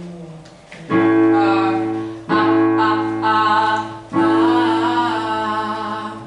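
Digital piano playing three sustained chords, each struck and left to fade, with a man singing a held note over each. It is a vocal warm-up exercise practising the attack of the note.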